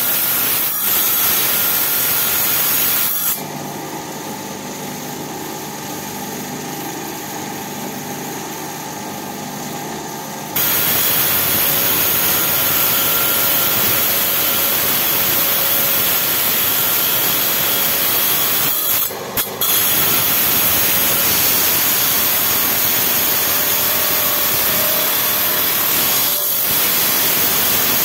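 A rough green stone held against a spinning wet grinding disc, a steady harsh grinding noise as the stone's outer skin is ground away before polishing. From about three to ten seconds in the grinding gives way to a quieter steady hum. The grinding briefly breaks off twice near the middle.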